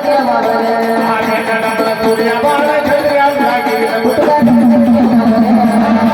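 Folk music: a man singing with instrumental accompaniment and a steady percussion beat; a low sustained note comes in about four seconds in.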